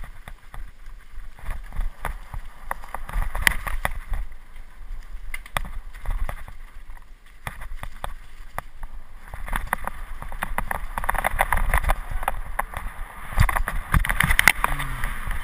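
Mountain bike rolling fast over a rough, leaf-covered, stony trail: a continuous rumble of tyres with frequent knocks and rattles as the bike hits rocks and bumps, louder and busier in the second half.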